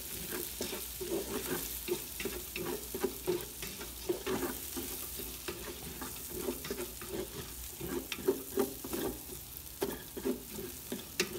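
Sliced onions and garlic frying in oil in an aluminium pot, sizzling steadily while a wooden spatula stirs them with irregular scraping strokes against the pot.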